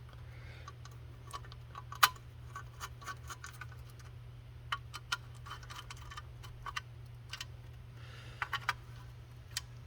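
Small metal parts clicking and tapping as bolts and washers are handled and fitted on a car gauge cluster, in irregular clusters with one sharper clack about two seconds in. A steady low hum runs underneath.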